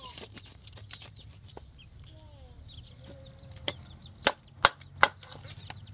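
Chickens clucking faintly in the background, with a run of sharp knocks; three loud knocks come in quick succession about four seconds in.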